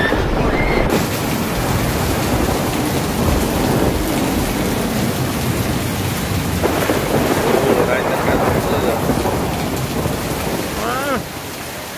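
Thunderstorm: heavy rain and rumbling thunder as a dense, steady roar. It drops somewhat in level about eleven seconds in.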